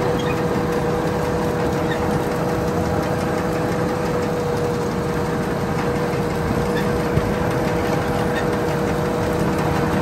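Rice combine harvester running steadily, its engine noise even throughout with a steady whine over it.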